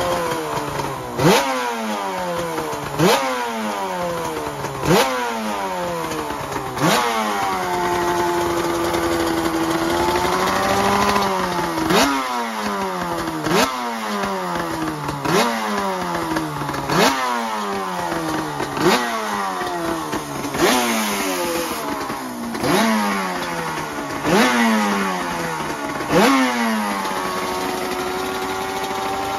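2017 Suter MMX500's two-stroke V4 racing engine being warmed up. The throttle is blipped sharply about every two seconds, each rev shooting up and sinking slowly back to idle. It idles steadily for a few seconds in the middle and settles back to idle near the end.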